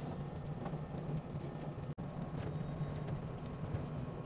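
Blue Line Park sky capsule running along its elevated rail, heard from inside the small cabin as a steady low hum with a few faint ticks. It cuts out for an instant about two seconds in.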